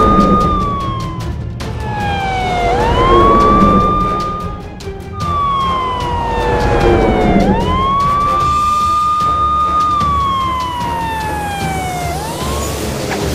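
Police car siren wailing, a sound effect: each cycle rises quickly, holds its pitch, then falls slowly, about three times in a row, over background music.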